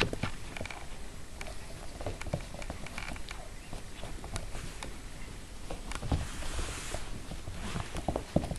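Papillon puppies scampering and playing, their paws pattering and claws clicking on the floor in quick, irregular taps, with a rustling scuffle about six seconds in.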